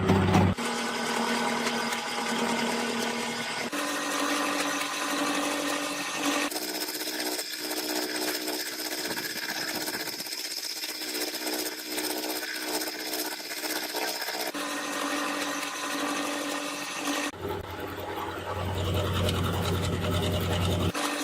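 Power tools machining steel, running steadily with a whine, in a run of short clips that cut abruptly from one tool or job to the next.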